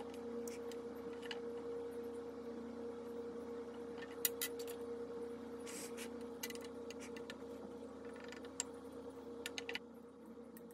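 A steady low hum with a handful of light clicks and taps scattered through the middle, glass marbles and a glass jar handled on a glass tabletop.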